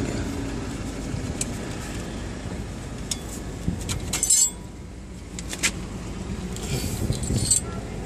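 Scattered metallic clicks and clinks as tools and brake parts are handled at a bus's disc brake caliper, the sharpest clink about four seconds in with a brief ring.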